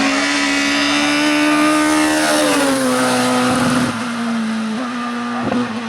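Hill climb race car engine running hard at high revs, its pitch dropping about two and a half seconds in and then holding steady at a lower note.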